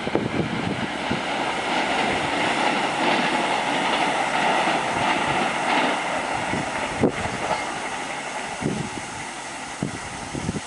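Express passenger train coaches running past at speed on the track, with scattered knocks and one sharp click about seven seconds in. The noise slowly dies away over the second half.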